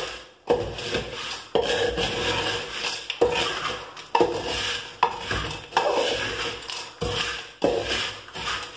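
Flat metal spatula scraping and tossing crisp fried seva (gram-flour and rice-flour strands) against the bottom of an aluminium pot, about one stroke a second. Each stroke begins with a scrape of metal on metal and is followed by a dry rustle of the strands. The seva is being stirred off the heat while its sugar-syrup coating crystallises.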